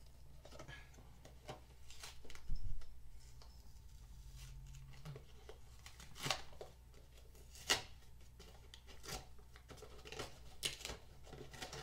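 A cardboard product box being opened by hand: rustling and scraping as the box is slid out of its paper sleeve and worked open, with a louder scrape about two and a half seconds in and several sharp cardboard clicks in the second half.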